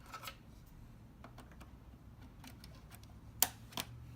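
Small plastic clicks and taps of server memory modules being handled and pressed into DIMM slots, with a sharper pair of clicks near the end as a slot latch snaps shut. A faint steady hum runs underneath.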